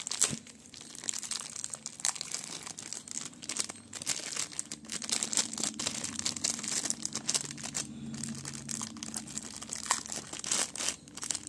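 Clear plastic bag crinkling and rustling in irregular crackles as hands unwrap a bass-treble tone control circuit board from it.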